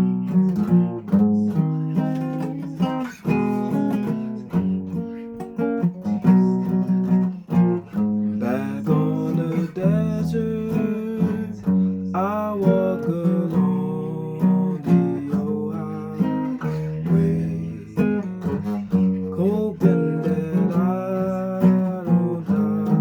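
Acoustic guitar strummed and picked in a steady chord pattern, played solo.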